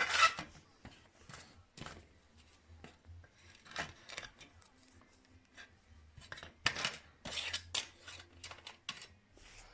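Scattered scrapes and small metallic clicks of a small part being cleaned by hand at a workbench: a louder scrape at the start, quieter scattered ones, then another cluster about two-thirds of the way through.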